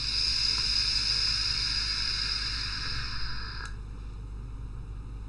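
A long draw on an EHPro Bachelor X single-coil rebuildable tank atomiser fired at 55 watts: a steady hiss of air and vapour through the tank for about three and a half seconds, cutting off sharply.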